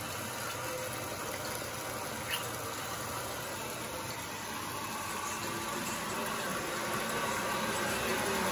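Tap water pouring from a waterfall faucet into a filling bathtub, a steady rush that grows slightly louder, with a light tap about two seconds in.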